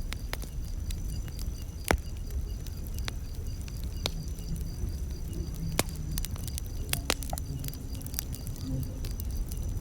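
Campfire wood crackling, with scattered sharp pops over a low steady rumble of the flames; the loudest pop comes about two seconds in. A faint steady high pulsing sounds behind it.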